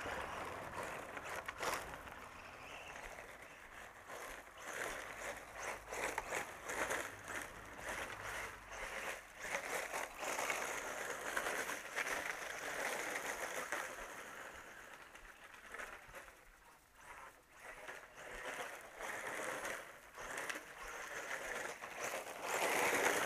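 Continuous, uneven crunching of gravel with many small clicks, dipping about two-thirds of the way through and swelling near the end.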